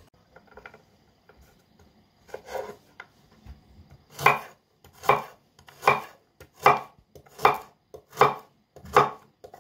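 Chef's knife slicing a carrot into rounds on a wooden cutting board: a few light cuts, then from about halfway a steady chop a little more than once a second, each stroke hitting the board.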